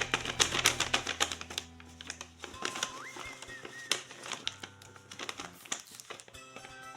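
Quick sharp clicks and crinkles of paper being handled, denser in the first few seconds and sparser later, over background music with a melody.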